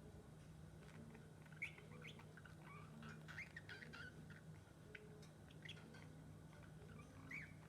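Pet lovebird making soft, short chirps and twitters at irregular intervals, some with quick pitch bends, over a faint steady low hum.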